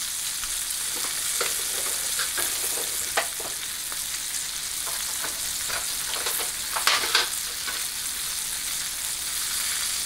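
Thick ribeye steak searing in hot fat in a pan on high heat: a steady sizzle with scattered sharp crackles and pops, a louder cluster about seven seconds in.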